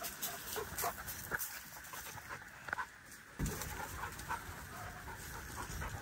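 Dogs playing in a paddock, with scattered soft scuffs and clicks and a dull thump about three and a half seconds in.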